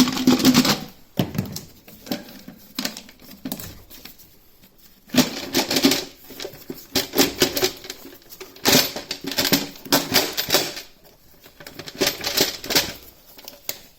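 Bursts of rapid clicking and clattering of hand tools and metal engine parts, as the stuck valve cover on a 1.9 TDI diesel engine is worked free.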